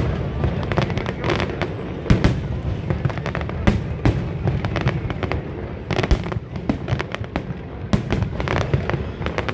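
Fireworks display: many bangs and crackles going off in quick, irregular succession over a steady low rumble.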